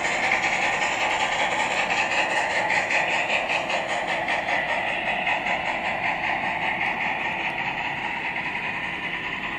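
HO-scale model train cars rolling past on the track: a steady rolling noise that slowly fades as the train moves on.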